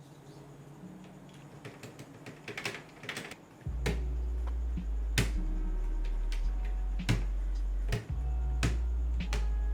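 Irregular sharp plastic clicks from a Keychron K6 mechanical keyboard as it is reassembled, its parts pressed back into place. Background music with a deep bass comes in a little under four seconds in.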